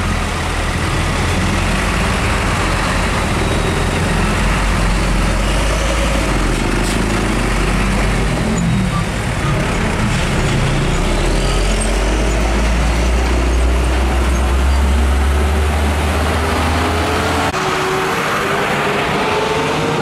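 Hino 500 truck's diesel engine running as the truck pulls slowly past close by, a deep steady rumble amid roadside traffic. In the last few seconds the deep rumble drops away and another engine rises in pitch as it speeds up.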